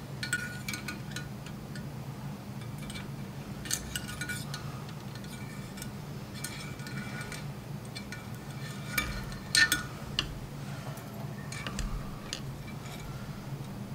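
Scattered light metallic clinks and taps from an AR-15 upper receiver and its cleaning gear being handled on a towel-covered table, a cluster of louder clinks about nine and a half seconds in, over a steady low hum.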